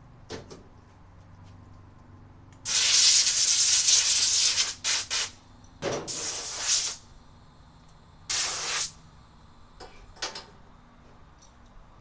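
Compressed air hissing in bursts to blow debris off a drilled metal plate: one long blast of about two seconds, two quick puffs, a one-second blast, a shorter blast, then a faint puff.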